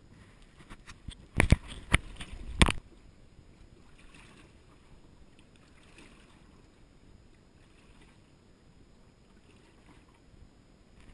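Four sharp knocks in quick succession, about a second and a half in, then faint lapping of choppy water around a small boat.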